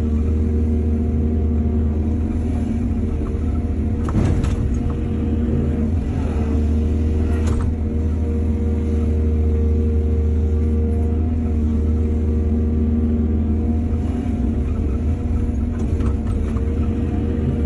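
Excavator's diesel engine running steadily, with two brief knocks about four and seven seconds in.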